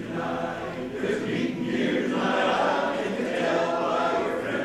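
A men's barbershop chorus singing a cappella in close four-part harmony, many voices together.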